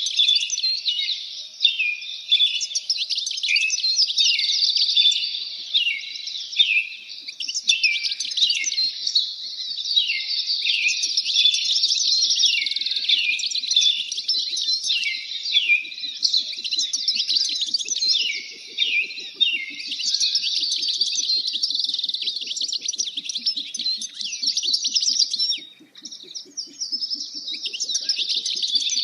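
Songbirds chirping and twittering continuously, many short high calls overlapping, with a brief lull about 26 seconds in.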